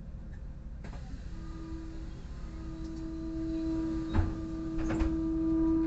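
Inside a city bus: a steady mechanical hum from the bus's drive that grows louder, with two sharp knocks about a second apart in the second half.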